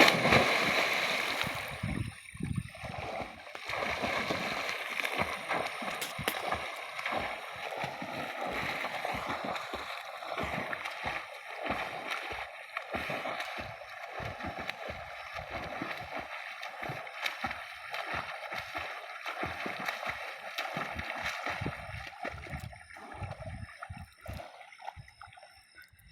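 Swimming splashes: a burst of splashing as the swim begins, then a long run of irregular strokes and kicks churning the water.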